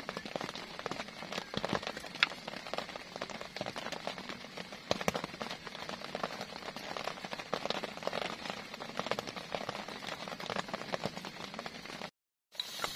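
Steady rainfall with dense, irregular drop hits close by. The sound drops out completely for a moment near the end.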